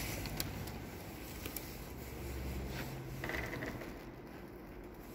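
Faint scattered clicks and rustles of someone walking with a handheld phone over a steady low room rumble.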